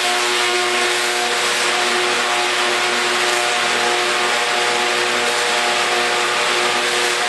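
Project Gemini Tesla coil firing, sparks streaming from its toroid with a loud, steady buzzing hiss. The coil is being test-run after its arc-damaged secondary windings were repaired.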